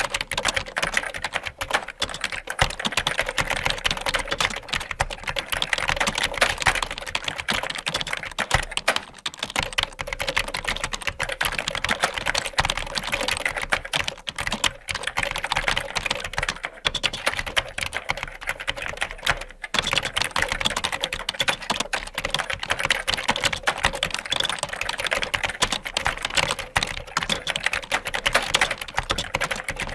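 Rapid typing on a computer keyboard: a dense, continuous run of key clicks, with brief pauses about nine and twenty seconds in.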